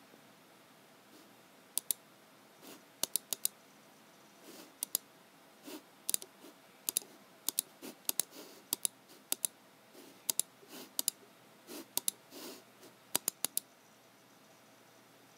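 Computer mouse and keyboard clicking at a desk. Sharp clicks, often in quick pairs, alternate with softer taps. They start about two seconds in and stop a couple of seconds before the end.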